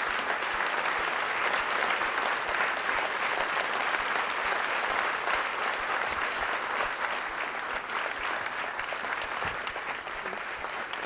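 A large theatre audience applauding steadily, the clapping easing off a little near the end.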